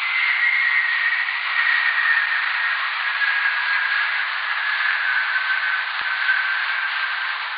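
VLF radio recording of multi-hop whistlers, lightning-made radio waves bouncing between Earth's hemispheres along the magnetic field, played as sound: a steady hiss with one faint tone that slowly falls in pitch over several seconds.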